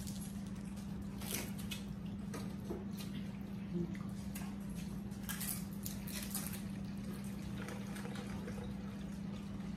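People eating tortilla chips with cheese dip: scattered short crunches and wet mouth sounds over a steady low hum.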